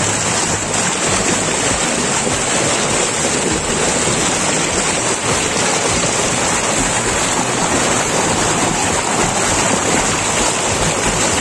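Rushing stream water, a loud steady hiss.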